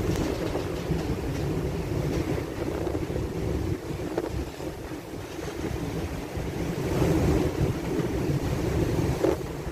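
Wind buffeting the microphone over the rush of rough sea around a bulk carrier under way, a dense, rumbling noise that swells and eases without any tones.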